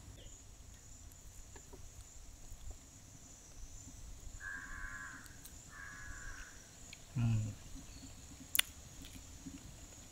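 A crow cawing twice, each call about half a second long, a little over a second apart. About seven seconds in comes a man's short low hum, the loudest sound here, and a sharp click follows a second later.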